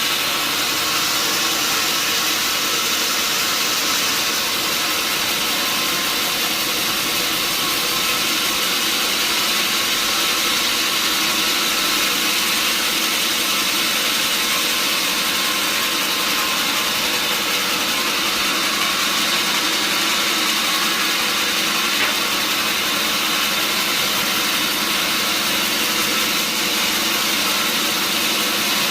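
Sawmill band saw and its drive engine running steadily, a constant mechanical drone with a strong high hiss that does not change.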